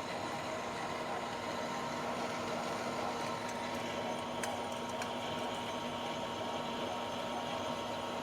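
Manual lathe running steadily while turning the outside diameter of a steel plate on a slow-feed finish cut: an even hum with a steady mid-pitched tone and a couple of faint ticks about halfway.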